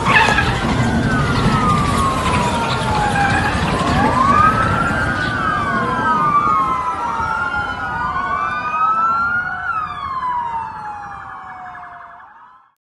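Several police sirens wailing at once, their rising and falling tones overlapping and crossing, over a low rumble. The sirens grow fainter near the end.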